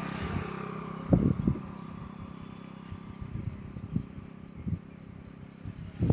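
A passing engine fading away under outdoor background noise, its pitch dropping slightly, with several short low thumps.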